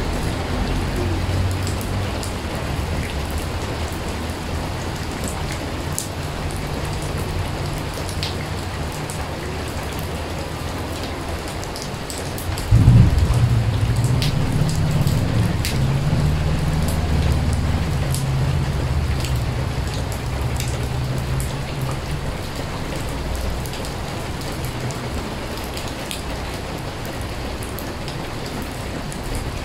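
Rain falling steadily into a wide puddle of standing water on pavement: a constant hiss with the sharp clicks of single drops hitting the water. About halfway through, a low rumble starts suddenly and slowly fades over several seconds.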